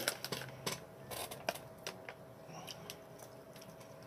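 A plastic candy pouch crinkling as gummy worms are picked out of it: a run of short crisp crackles in the first second and a half, then only a few faint scattered ticks.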